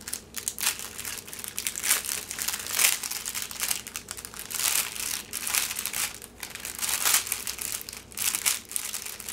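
Small clear plastic bags of diamond-painting beads crinkling as they are handled, in irregular bursts.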